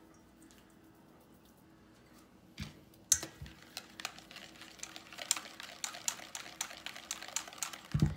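Wire whisk beating ranch dressing in a stainless steel bowl: rapid, irregular clicking and scraping of the wires against the metal, starting about three seconds in after a thump. There is a low thump near the end.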